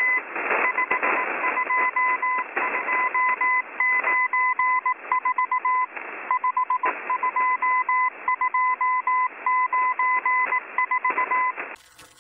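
Morse code from the Russian CW number station M01, received over shortwave radio: a steady beep keyed on and off in dots and dashes over radio hiss, with occasional crackles of static. The keying stops shortly before the end.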